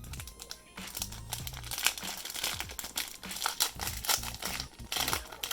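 Trading-card pack wrapper crinkling in quick, irregular crackles as it is handled and opened.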